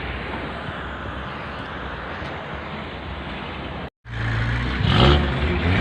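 Vehicle on an off-road track: a steady rumble with rushing noise. After a brief cut about four seconds in, a louder engine hum.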